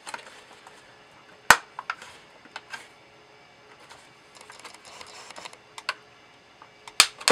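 Plastic clips of a VW Cabriolet instrument cluster housing snapping into place as the housing is pressed back together. There is a sharp click about one and a half seconds in and a few lighter clicks with plastic rubbing, then two more sharp clicks near the end.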